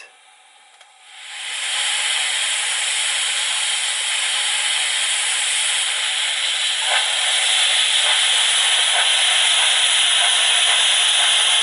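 Roco BR 038 model locomotive's factory-fitted sound decoder playing a steady steam hiss through its onboard speaker, fading in about a second in: the start of its light-running sound set, switched on with function 8.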